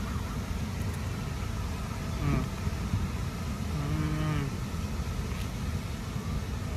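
A man's closed-mouth "mmm" of enjoyment while eating: a short falling one about two seconds in and a longer steady one around four seconds. A steady low background rumble runs underneath.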